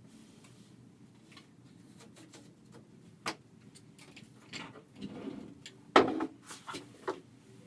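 Scattered clicks and knocks of small hard objects being handled, with a sharp click about three seconds in and a busier run of knocks and rubbing from about four and a half seconds, loudest near six seconds.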